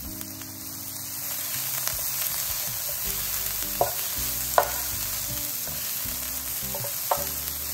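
Chopped onions, green chillies and ginger sizzling in hot coconut oil in an electric skillet as they are sautéed to soften, stirred with a spatula. The sizzle grows louder about a second in, and the spatula taps sharply against the pan three times.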